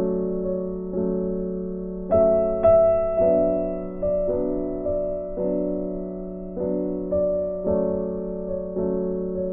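Background music: a soft piano or electric piano playing slow sustained chords, a new chord struck about once a second and left to fade.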